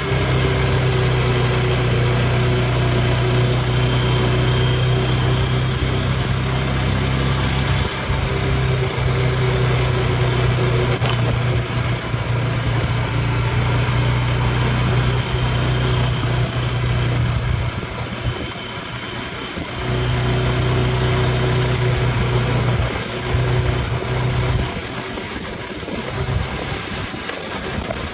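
ATV engine running at a steady throttle, easing off about two-thirds of the way through and again near the end.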